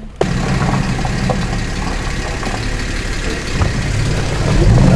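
Vehicle driving on the road: engine running under steady tyre and road noise. The noise starts abruptly and grows louder toward the end.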